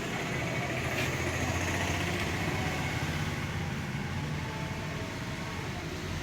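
A steady low engine hum, with a noisy wash over it.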